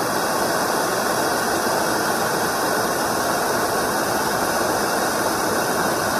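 Handheld propane torch burning with a steady hiss, its flame heating the blade of a hot knife.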